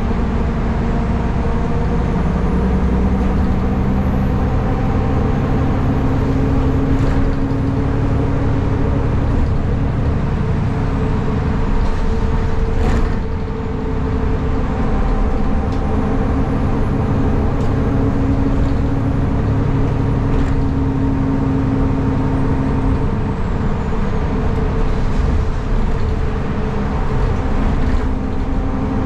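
A city bus under way, heard from inside: a steady engine and drivetrain hum whose tones step up and down in pitch as the bus changes speed, with a few brief clicks and rattles. There is one sharp click about thirteen seconds in.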